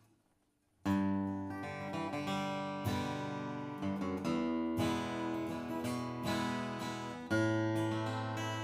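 Martin D-28 Authentic 1941 dreadnought acoustic guitar played with a pick, starting about a second in: strummed chords struck hard four times and left ringing, with single picked notes between them.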